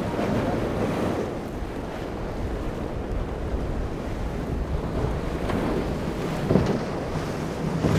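Wind buffeting the microphone over the wash of waves and boat wakes, with passing powerboat engines running underneath.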